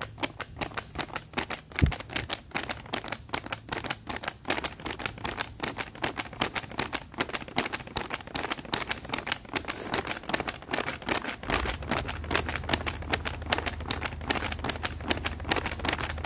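Lamb skewers sizzling over hot charcoal: dense, irregular crackling and popping. A low steady hum comes in about two-thirds of the way through.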